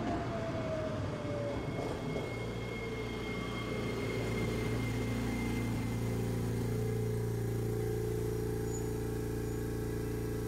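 Tosaden streetcar running: a whine from its drive falls in pitch over the first second or so as it slows, then gives way to a steady machine hum.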